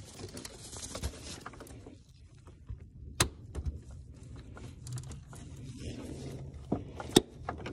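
Rubber upper radiator hose being pushed down onto its plastic tank fitting by hand: rubbing and handling noises with a few sharp plastic clicks, the loudest about three seconds in and another near the end.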